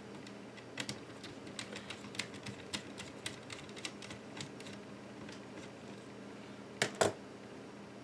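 Small, irregular clicks and taps of iBook G4 laptop parts and tiny screws being handled and fitted together, with two louder clicks close together near the end.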